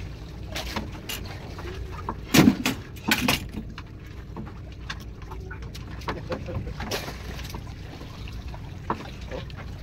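Water lapping against the hull of a drifting outrigger fishing boat over a steady low rumble, with two sudden louder sounds about two and a half and three seconds in.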